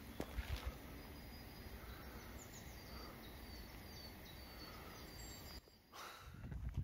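Faint woodland ambience: a steady low outdoor rumble with a few footstep crunches at the start. About two seconds in comes a run of short, high chirps from a small bird. The background cuts out briefly near the end.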